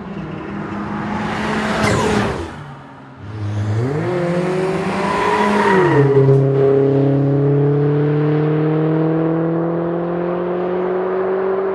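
A Volvo saloon's engine under hard driving: it grows louder as the car approaches and passes close by about two seconds in. The revs then climb under acceleration, drop with a gear change just before six seconds, and rise slowly again as the car pulls away.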